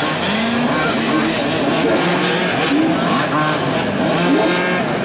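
A pack of 1/5-scale petrol RC race cars' small two-stroke engines revving together, many engine notes rising and falling over one another, as the race starts.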